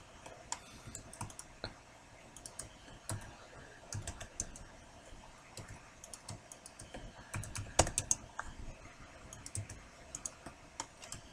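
Irregular clicks and taps from a computer keyboard and mouse, with one sharper click about eight seconds in.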